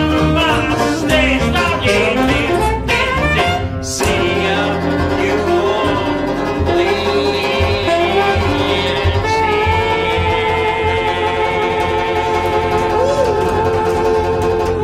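Small acoustic jazz band playing: a saxophone carries the melody over a strummed banjo and a plucked double bass. In the last few seconds the band settles onto long held notes, then stops abruptly at the very end.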